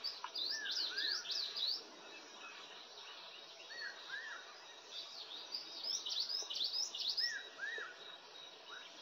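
Wild birds calling: two bursts of quick, high, slurred notes, one near the start and one about six seconds in, with pairs of lower arched whistles scattered between them, over a faint steady background.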